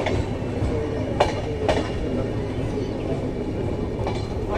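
Passenger train running, a steady rumble with a few sharp clicks about a second in.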